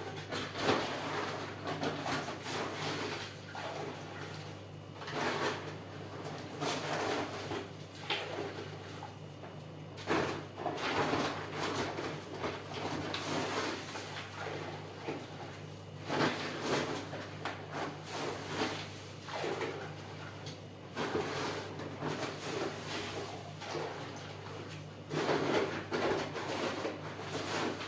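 Powdered gypsum plaster shaken from a paper bag into a bucket of water, heard as repeated bursts of rustling and pouring every second or two. A steady low hum runs underneath.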